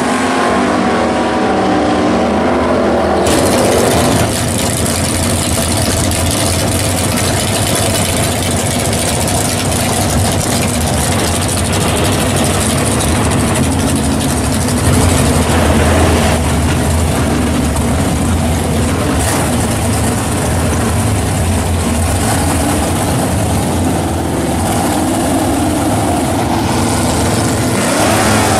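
Loud drag-racing car engines. A car is running hard down the strip at first; about three seconds in the sound changes to engines idling loudly at the starting area, with occasional revs.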